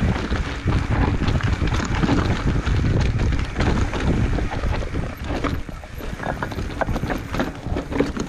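Commencal Meta Trail 29 mountain bike rolling over rocky ground: tyres grinding on stones with many quick rattling knocks from the bike, and wind buffeting the microphone.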